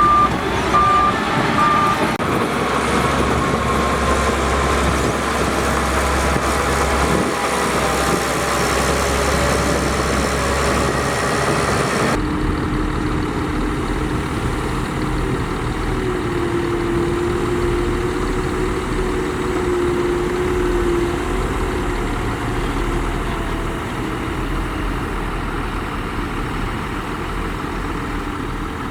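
Diesel engines of heavy earthmoving machinery running steadily, with a reversing alarm beeping in the first couple of seconds. The engine sound changes abruptly about twelve seconds in.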